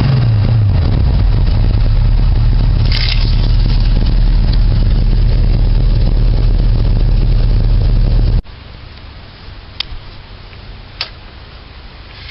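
Car engine running steadily. About two-thirds of the way in it drops away abruptly, leaving a quieter background with a couple of sharp clicks.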